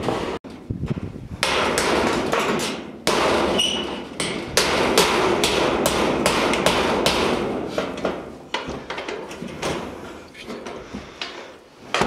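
Hammer blows on corrugated metal roofing sheets, a long run of sharp metallic strikes that thin out towards the end, as the sheets are nailed down.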